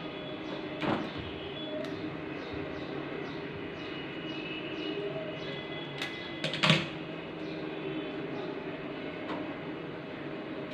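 Pliers and wire strippers clicking while the motor's lead wires are stripped and twisted, with the sharpest click a little under seven seconds in. Underneath runs a steady hum with a faint tick about twice a second.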